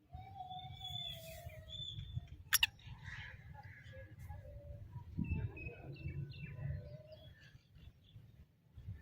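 Birds chirping and whistling in short scattered notes over a low steady rumble, with one sharp click about two and a half seconds in.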